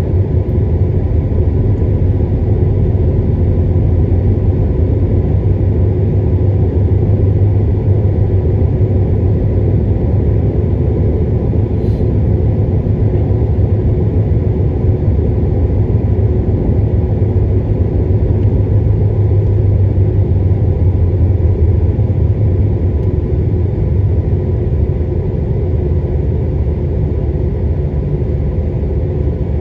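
Steady low rumble of a car's engine and tyres on the road, heard from inside the cabin while driving, a little quieter near the end. A single brief click about twelve seconds in.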